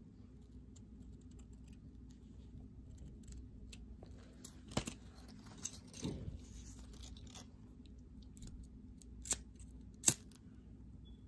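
Small scissors snipping satin ribbon and then being set down on the table, with faint ribbon handling and a few sharp clicks, the loudest near the end.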